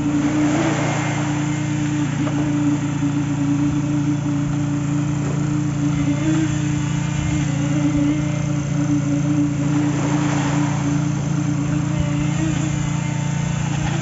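Small petrol engine of a concrete poker vibrator running at a steady speed, driving the vibrator through its flexible shaft. About a second in, a rush of noise as wet concrete slides down a chute.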